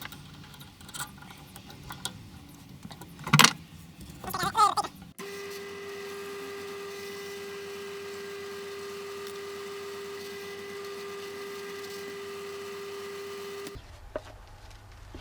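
Knocks and clicks of work being handled at an engineer's drill press, one sharp knock about three seconds in. Then a steady machine hum, most likely the drill press motor running, starts suddenly about five seconds in and stops suddenly near the end.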